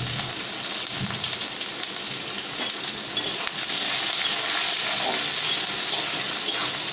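Chopped onions frying in hot oil in a kadhai, a steady sizzle, stirred with a metal spatula against the pan.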